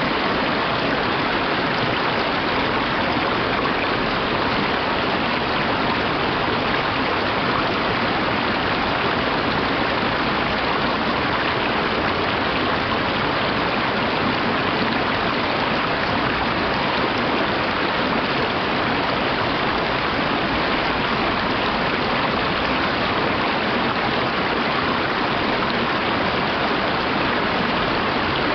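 Shallow mountain stream rushing steadily over rocks and small riffles, an even hiss of water.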